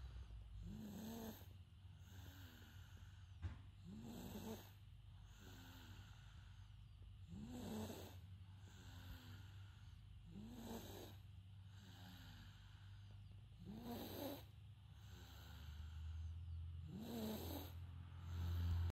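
Slow, even snoring of a sleeper napping, one faint snore about every three seconds, six in all. A low hum swells near the end and is the loudest thing there.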